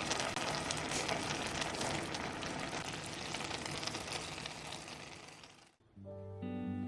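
Food frying in a pan: a steady crackling sizzle that fades out about five and a half seconds in. Guitar music starts just after.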